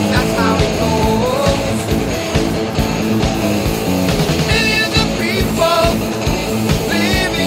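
Rock music with guitar, a steady drum beat and a singing voice.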